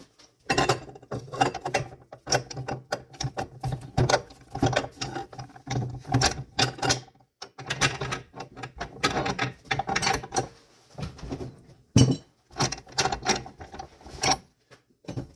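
Irregular metallic clicks, rattles and knocks from handling a piece of steel stock and the chop saw's clamp while setting up a cut, with short pauses between bursts of handling.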